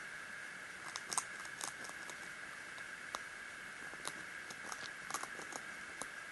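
Hamster gnawing on a pressed seed-and-grain food ball: scattered small crunchy clicks, clustering about a second in and again about five seconds in.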